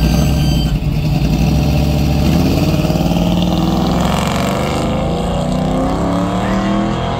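G-body Chevrolet Monte Carlo's V8 engine running at a steady low note, then from about two seconds in rising steadily in pitch as the car accelerates away down the drag strip.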